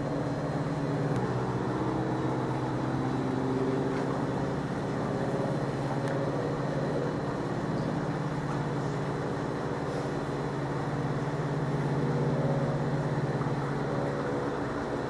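The skywriting plane's propeller engine droning steadily overhead, its pitch drifting slowly up and down as it flies the letters.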